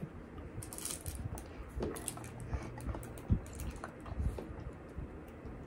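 Soft clicks, taps and squishy mouth noises as a toddler sips through a straw and fumbles with a small cup, with a dull knock about three seconds in.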